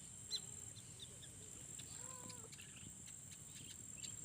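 Faint rice-field ambience: a steady high insect drone, with brief bird chirps early and a short distant call about two seconds in.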